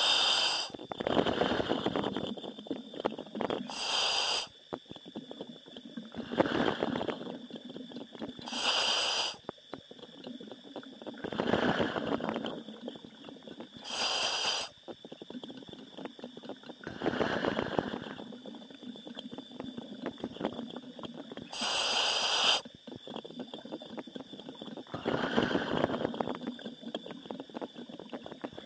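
A diver breathing through a commercial diving helmet's demand regulator. Each breath starts with a short hiss as the valve opens on the inhale, followed by a longer rough rush as the exhaled air bubbles out. The breaths come steadily, roughly every five seconds.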